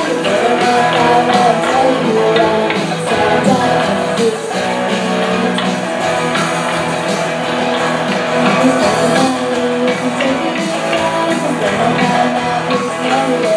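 Children's rock band playing live: a girl singing lead over electric guitars and bass guitar.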